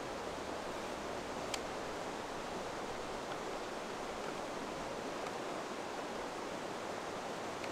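Steady rush of river rapids, with a single sharp click about a second and a half in.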